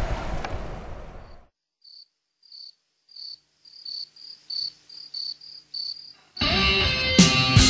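Cricket chirping in a series of short high pulses that grow louder and closer together, after wind and outdoor noise fades out in the first second and a half. A rock song with electric guitars cuts in near the end.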